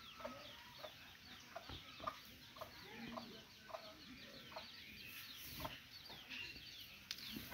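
Chickens clucking faintly, short scattered clucks throughout, with many quick high chirps that slide downward over them.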